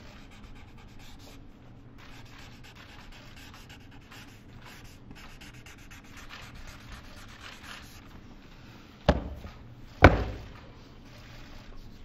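A pen scratching across paper as a document is signed, with paper rubbing. Near the end come two sharp knocks about a second apart; the second is louder.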